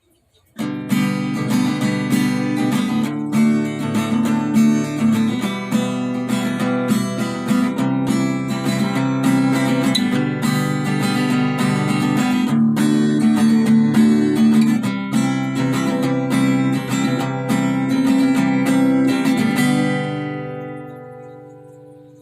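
Acoustic guitar music, strummed, that fades out near the end.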